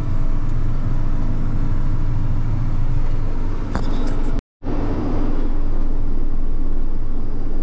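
Vehicle engine running steadily, a low rumble heard from inside the cab, broken by a very brief dropout about four and a half seconds in.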